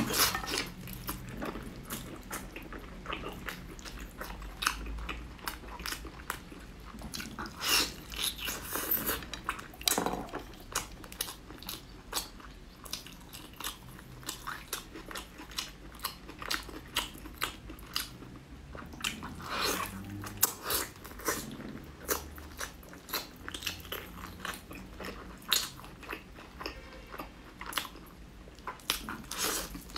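Close-miked chewing and biting of braised meat: a steady run of irregular wet mouth clicks and smacks, with a few louder bites along the way.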